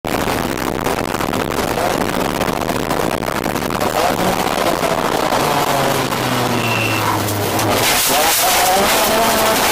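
Race car engine running hard, heard from inside the stripped-out cockpit, its pitch rising and falling as the car accelerates and slows.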